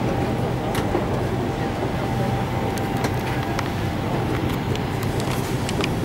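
Steady low hum of a docked Fred. Olsen ferry's engines and machinery, with a few faint clicks.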